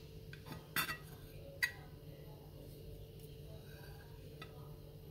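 Knife blade clinking against a ceramic plate as it cuts a slice of soft cake: a short scrape about a second in, then a sharp click, with a few faint taps later, over a low steady hum.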